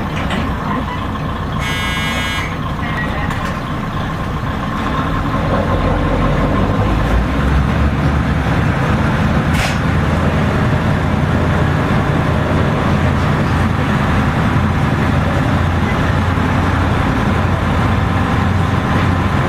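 Old diesel railcar heard from inside the passenger cabin, its engine rumbling steadily and growing louder about six seconds in as it takes power. A short high-pitched tone sounds about two seconds in.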